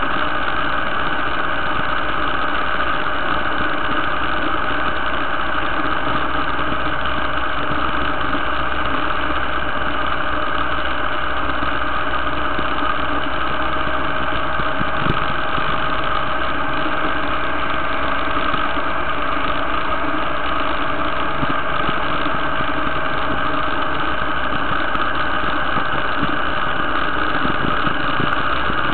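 Motorcycle engine running steadily at cruising speed, an even drone with no gear changes or pauses.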